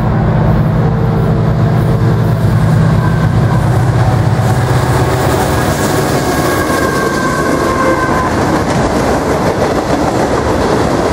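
CSX freight train passing close by: the deep drone of the diesel locomotives for the first few seconds, then the steady rumble of tank cars rolling past, with a faint high wheel squeal between about six and eight seconds in.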